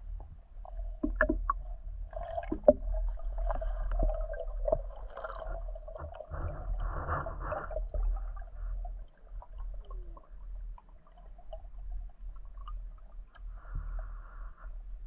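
Muffled underwater sounds through a diving camera's housing: a constant low rumble with sharp clicks and knocks in the first few seconds, and short bubbling gurgles about six to eight seconds in and again near the end.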